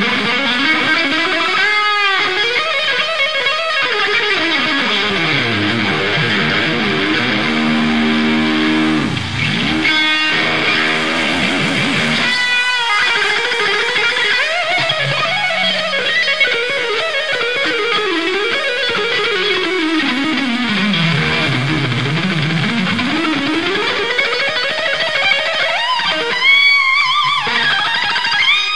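Electric guitar solo on a Stratocaster-style guitar. The pitch sweeps in long falls and climbs, with quick runs of notes between them.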